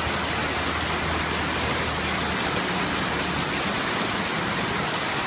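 Heavy rain pouring steadily onto a flooded street, a constant even hiss of drops hitting standing water.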